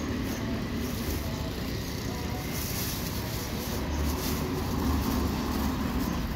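Clear plastic bag crinkling as cut fish pieces are dropped in and the bag is shaken, over a steady low rumble of traffic and market noise.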